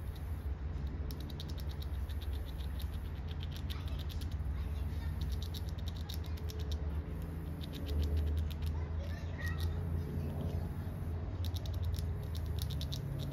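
Squirrel gnawing the hard shell of a black walnut with its teeth: bursts of rapid, fine scraping clicks, each lasting a second or so, coming every couple of seconds, over a steady low rumble.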